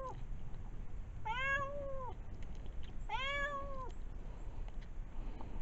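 Stray cat meowing: the end of one meow, then two drawn-out meows a little under two seconds apart.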